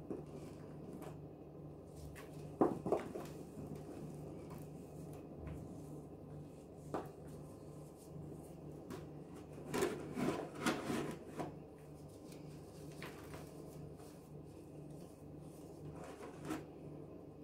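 Hands crumbling and squeezing dry gym chalk mixed with laundry detergent powder: soft crunching and rubbing of powder and grit, with louder crunches about three seconds in, around ten to eleven seconds in, and once more near the end.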